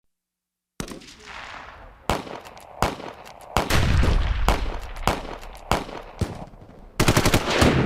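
Battle sound effect: after a brief silence, single gunshots crack out every half second to a second, with a deep rumbling blast around the middle, then a rapid machine-gun burst near the end.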